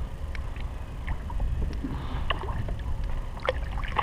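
Water sounds around a kayak as a hooked crappie is reeled in: a low steady rumble with scattered small splashes and clicks, then a sharper splash near the end as the fish thrashes at the surface.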